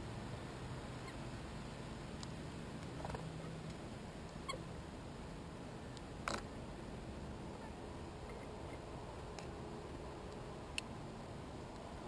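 Steady hiss with a few brief, sharp clicks, the loudest about six seconds in: American goldfinches pecking and cracking sunflower seeds at a plastic tube feeder.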